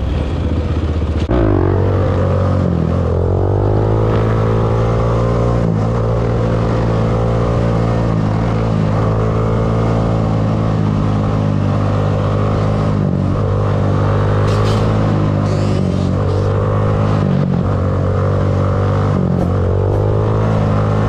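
Yamaha Banshee 350's two-stroke parallel-twin engine running through a DMC 916 exhaust. It holds a steady idle whose note dips and recovers every couple of seconds.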